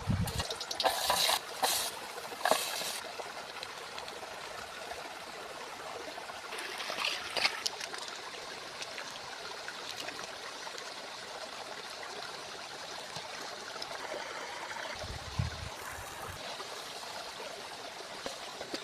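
River water flowing steadily over stones, an even rushing trickle, with a few short louder clatters near the start and about seven seconds in.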